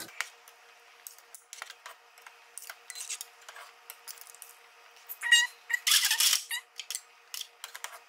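A metal ladle and a brass strainer basket clinking and scraping against a stockpot as boiled potatoes and sausage are scooped out. Scattered light clicks, a short squeak about five seconds in, and a louder clatter about six seconds in.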